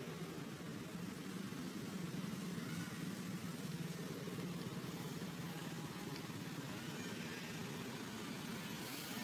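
Steady low hum of an idling vehicle engine under a faint outdoor hiss.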